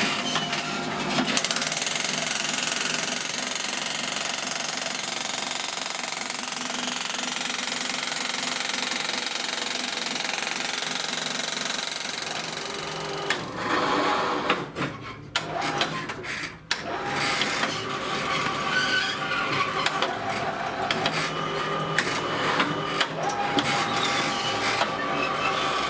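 Homemade electric jackhammer attachment hammering with a rapid, steady chatter. About halfway through it turns uneven, with a few separate knocks and brief drops, then runs on steadily with a faint hum underneath.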